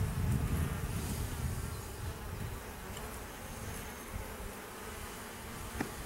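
Honey bees buzzing in a steady hum over an opened hive, with a single light click near the end.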